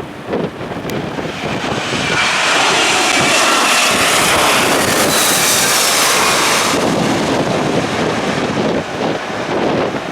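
Jet aircraft passing close by during a go-around, its engines running with a high whine that builds about two seconds in and drops away about seven seconds in. Gusty typhoon wind buffets the microphone before and after.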